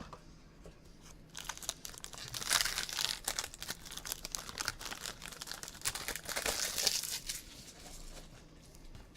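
Plastic packaging of a sealed 2015 Panini Black Gold football card box crinkling and tearing as it is opened by hand, in two louder spells with a quieter stretch between.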